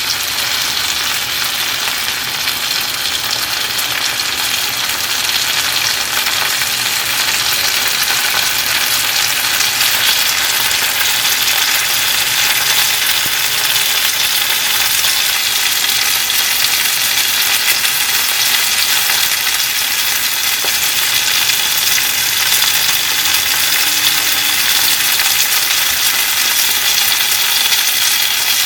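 Flounder sizzling steadily as it pan-fries in hot oil, a dense even crackle and hiss.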